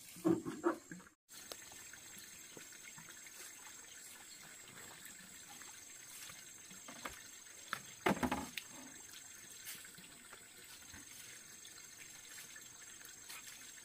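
Faint, steady trickle of running water, with a brief louder sound near the start and another about eight seconds in.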